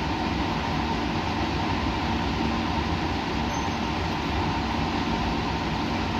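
Steady, unchanging background noise with a low steady hum running through it: a constant mechanical drone.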